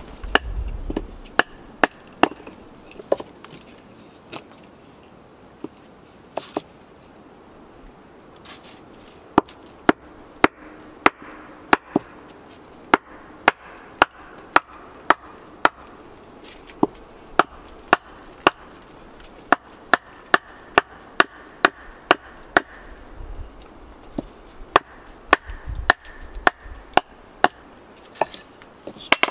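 Wooden club striking the spine of a blade set into a short dogwood stick, batoning it to split off a thin blank: sharp wooden knocks, a few spread out at first, then a steady run of about two a second from about nine seconds in.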